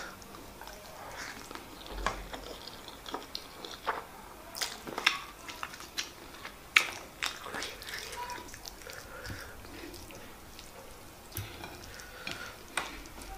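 Close-miked eating sounds: a mouthful of white rice and chicken stew being chewed, with many short, sharp, wet mouth clicks and smacks.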